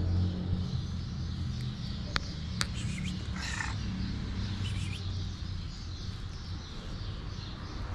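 Short animal calls: a rough, raspy one about three and a half seconds in and a brief high chirp about a second later. Two sharp clicks come before them, over a low rumble.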